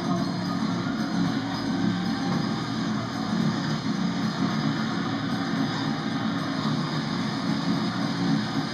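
Background music led by guitar, steady and without breaks.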